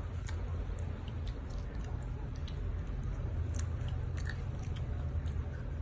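Young children chewing grapes, with irregular wet mouth clicks and smacks over a steady low hum.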